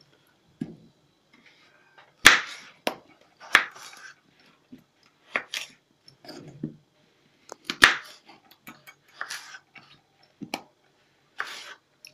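Kitchen knife cutting peeled raw potatoes on a plastic cutting board: a string of irregular sharp knocks as the blade goes through to the board, with short slicing scrapes between. The loudest knocks come about two seconds in and near eight seconds.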